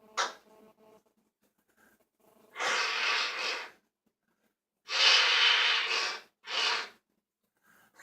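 Bad, wheezy coughing in three long rasping fits, the first two each over a second long and the third shorter, after a short sharp sound near the start.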